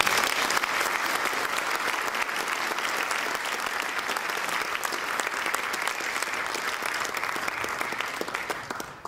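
Lecture audience applauding, many hands clapping steadily, starting suddenly and dying away near the end.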